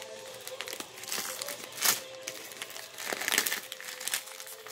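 Packaging wrap crinkling and rustling as a heavily wrapped package is pulled open by hand, with one sharp rip just under two seconds in.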